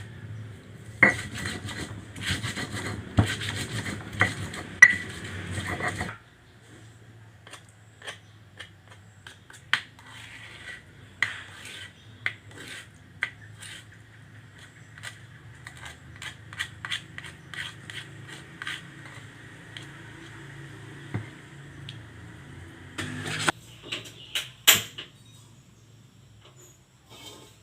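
Kitchen utensils scraping and clinking against cookware: a dense stretch of scraping for the first few seconds, then scattered clicks and knocks, with a short louder clatter near the end.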